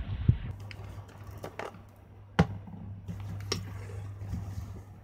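Handling noise of a Canon EOS-1 film SLR body being turned over in gloved hands: scattered light clicks and knocks, the sharpest about two and a half seconds in, over a low steady hum.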